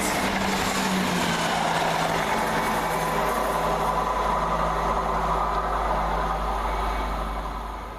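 Diesel multiple unit running through the station, a steady engine drone with a humming tone over rail and wheel noise, fading away near the end.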